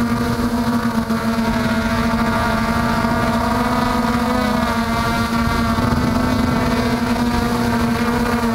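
MJX Bugs 3 quadcopter's brushless motors and propellers in flight, a steady droning hum whose pitch wavers slightly, with a rumble of wind beneath.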